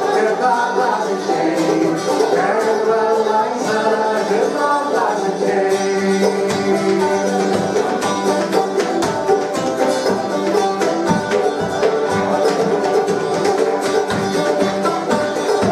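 Live bluegrass band playing: a banjo and an acoustic guitar picking a steady tune, with singing over it.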